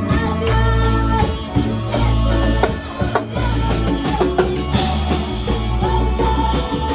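Music: guitar over a low bass line, with a steady drum beat.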